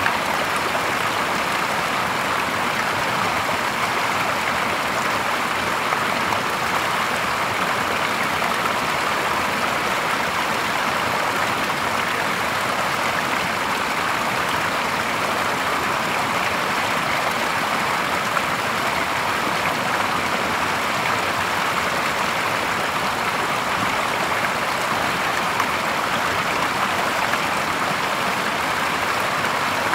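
A small cascade of clear stream water pouring steadily over stones into a shallow pool, a constant splashing rush that does not change.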